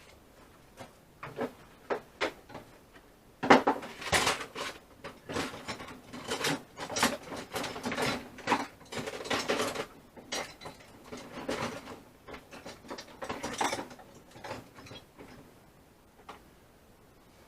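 Hand-tool work: a run of irregular mechanical clicks and clanks, a few scattered at first and then dense from about three and a half seconds in, thinning out near the end.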